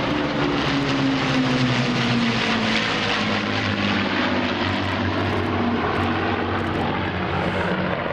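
Rolls-Royce Merlin V12 piston engines of a Lancaster, a Mosquito, a Spitfire and two Hurricanes flying past together in formation. It is a steady, loud propeller drone of several engines, and the engine notes fall slowly in pitch as the formation draws away.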